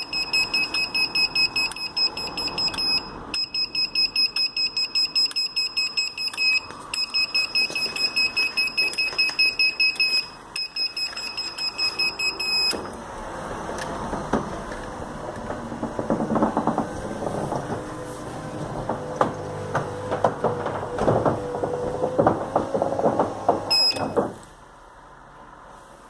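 Gliderol electric garage door opener beeping in fast pulses, in runs of about three seconds with short breaks. About halfway through the beeping stops and the opener's relay clicks irregularly over a low hum, with one short beep near the end. This is the fault the opener shows once the door is closed.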